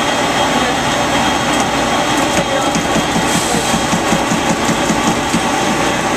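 2013 Autometrix Advantage plotter/cutter running while it cuts sailcloth: a loud, steady whirring hiss, with a quick run of short motor pulses, about five a second, through the middle as the gantry head moves in short strokes, and a few light ticks.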